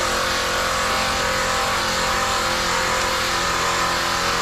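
A motor running steadily: a constant hum under a loud even rushing noise, started suddenly just before.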